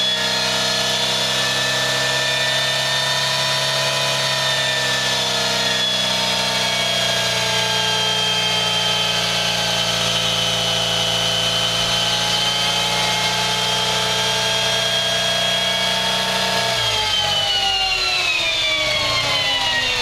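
BMW R90/6 air-cooled 898 cc flat-twin engine, freshly top-end overhauled, running at a steady speed on a chassis dynamometer with the rear wheel driving the roller. About three seconds before the end the pitch falls away smoothly as the engine and roller slow down.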